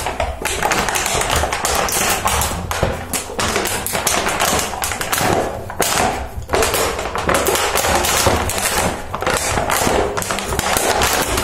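Empty plastic bottle crackling and crinkling as a dog chews and paws at it, with repeated taps and knocks of the bottle against the floor.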